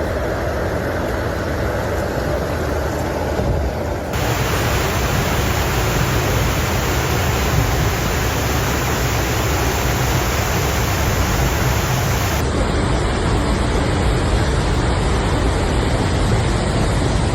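Steady, loud rushing noise with no clear tones, whose character changes abruptly about four seconds in and again about twelve seconds in.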